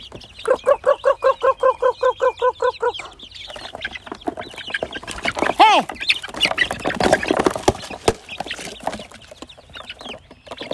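A person's rapid repeated 'kruk-kruk-kruk' call to chickens, about six syllables a second, for the first few seconds. Then young chickens cluck and peep as they crowd in to peck up earthworms from a feeding tray, with short pecking clicks.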